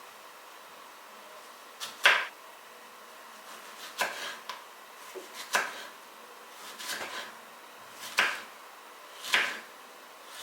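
Kitchen handling sounds: six short knocks and clatters, roughly one every second and a half, the loudest about two seconds in.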